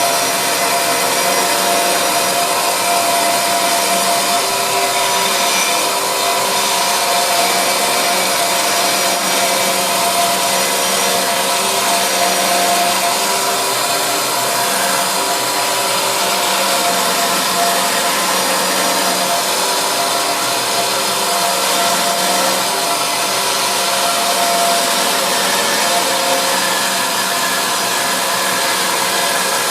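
Electric power saw running steadily as it cuts a curve in timber, a continuous motor hum and hiss with no pauses.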